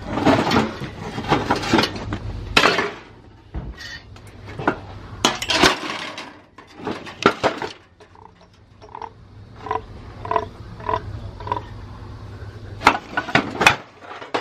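Metal scrap parts clanking and knocking as they are handled and shifted in a pile. Near the middle comes a run of short high tones, about two a second.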